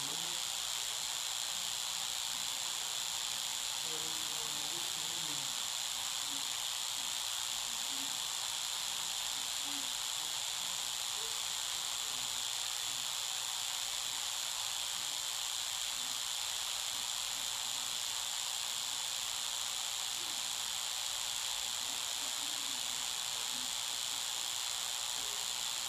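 A steady high-pitched hiss with no change in level. Underneath it is a faint murmur of crowd voices in the fight venue.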